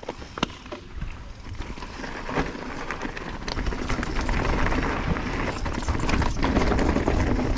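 Mountain bike rolling down a rocky trail: tyres crunching over rock with frequent clicks and rattles from the bike, growing louder as speed builds, with wind rumbling on the microphone.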